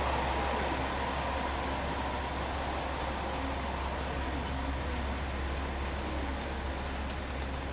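KiHa 47 diesel railcar idling while standing at the platform: a steady low engine hum, with a few faint light ticks in the second half.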